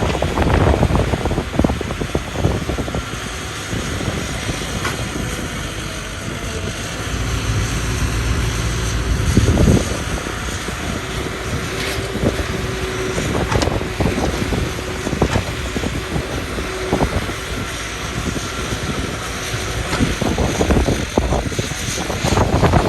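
Excavator engine running steadily, with scattered knocks and clanks, and wind buffeting the microphone.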